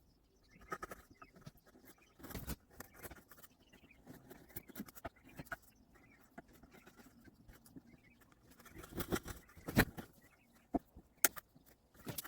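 Wood chisel held flat paring wood from the floor of a half-lap joint: irregular scraping strokes and small clicks, with a louder run of strokes about nine to ten seconds in.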